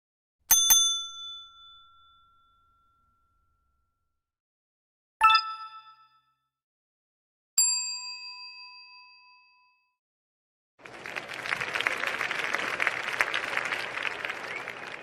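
A series of bell-like ding sound effects. A quick double ding comes about half a second in, a ding with several ringing tones about five seconds in, and another ding a couple of seconds later, each ringing out over a second or two. Near the end comes a rough, noisy rush lasting about four seconds.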